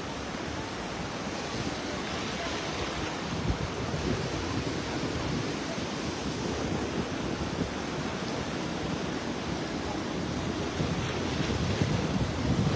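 Sea surf washing in over rocks at the water's edge, with wind rumbling on the microphone; a wave rushes in louder near the end.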